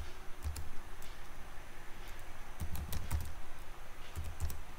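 Computer keyboard being typed on, a password entered in a few short runs of keystrokes with pauses between.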